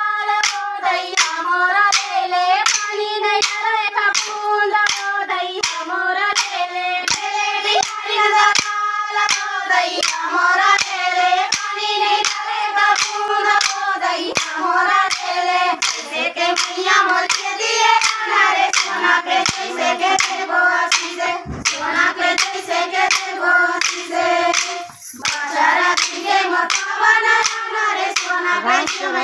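A group of women singing a Chhattisgarhi Sua folk song together, with sharp claps keeping an even beat about twice a second. The singing breaks off briefly near the end and then resumes.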